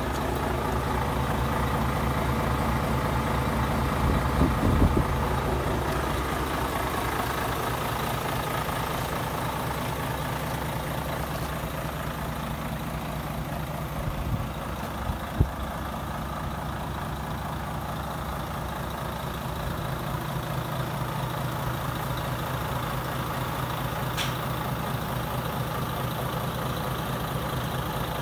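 Volvo FH500's 13-litre straight-six diesel idling steadily. A few knocks come about four seconds in, and a single sharp click about halfway through.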